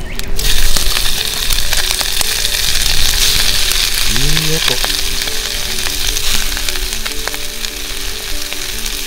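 Sliced meat sizzling in a hot cast-iron skillet over a wood fire. The sizzle starts as the meat is dropped in and then goes on steadily.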